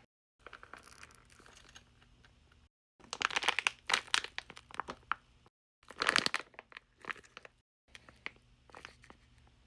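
Crinkling and crackling of a plastic bag in short irregular bursts as a taba squishy is squeezed and handled, loudest about three and six seconds in.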